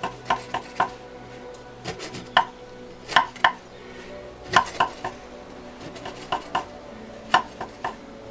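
Chef's knife cutting through puff pastry and striking a wooden cutting board: a string of short, sharp knocks at an uneven pace, a couple each second, as a pie lid is trimmed around its edge.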